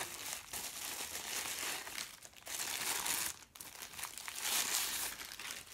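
Plastic wrapping crinkling and rustling as hands unwrap a newly unboxed camera, with a brief pause about three and a half seconds in.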